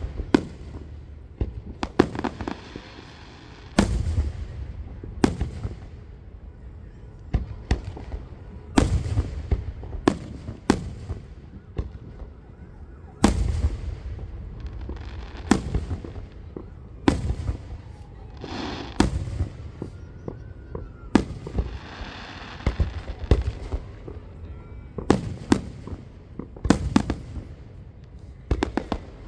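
Aerial fireworks shells bursting overhead, a sharp bang every second or two, each followed by a low rumbling echo.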